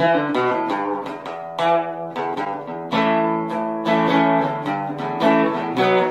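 Background music of a plucked guitar picking out a run of separate notes, several a second.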